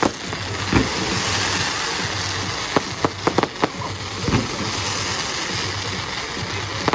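Fireworks going off: a string of sharp bangs with a quick cluster of reports about three seconds in, over a steady rushing noise.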